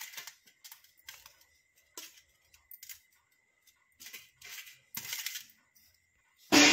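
Soft taps and scrapes of bread slices being set down and pushed into place on a stainless steel plate by hand, a handful of short separate sounds with pauses between them.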